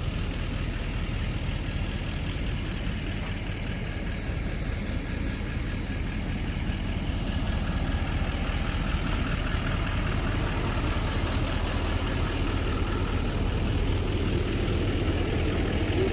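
A vehicle engine idling steadily, a low, even hum.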